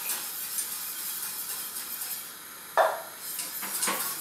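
Béchamel sauce being stirred in a saucepan over a high gas flame: a steady hiss, with a sharp knock of the utensil against the pan about three seconds in and a lighter knock near the end.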